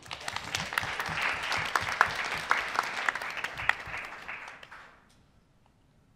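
Audience applauding: many hands clapping at once, dying away about five seconds in.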